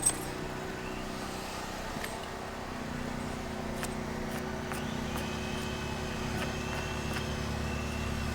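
An engine running steadily at low revs, a low hum that grows a little stronger about three seconds in, with a few faint ticks over it.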